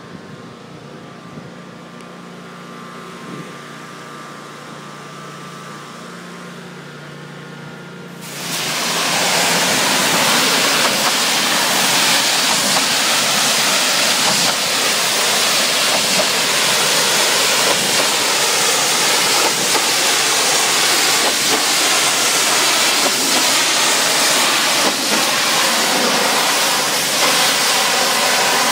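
A pressure washer's motor hums steadily. About eight seconds in, the high-pressure spray from the wand comes on suddenly as a loud, steady hiss, blasting dirt off a concrete wall.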